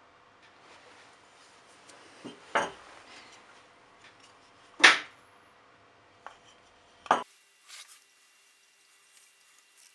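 Brief knocks and clinks as a steel knife blank made from an old file and burl birch handle scales are handled and set down on a workbench: three sharp knocks, the loudest about five seconds in, with a few lighter taps between.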